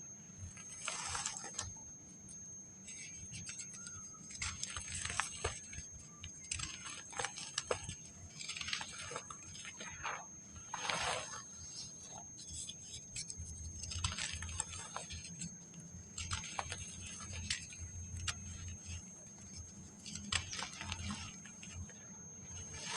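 Dry packed sand crumbling, in irregular crunchy, gritty bursts about every second or so with sharp crackles between them.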